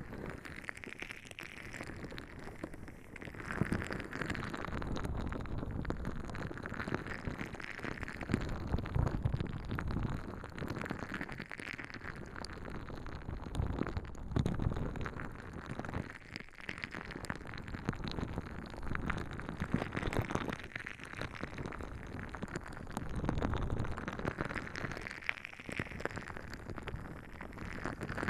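Clothing and body rubbing and pressing directly on a binaural microphone. The dense crackling friction noise swells and fades in slow waves every two to three seconds.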